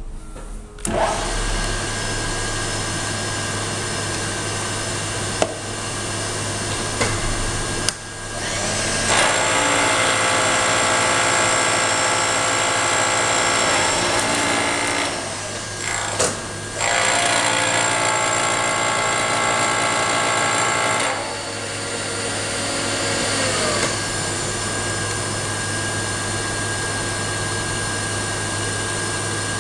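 Vertical milling machine spindle starting about a second in and running steadily, with a few sharp clicks. An end mill then cuts a metal part in two passes with a loud, many-pitched whine, before dropping back to the spindle running alone. The cut is taking about 0.040 in off to bring the part to size.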